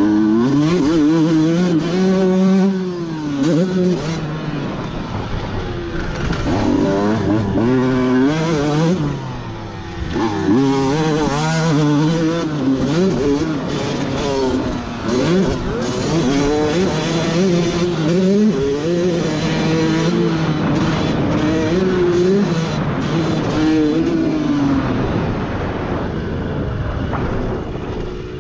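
Two-stroke Honda motocross bike's engine revving hard as it is ridden around a dirt track, the pitch climbing through each gear and dropping on shifts and when the throttle is rolled off, over and over.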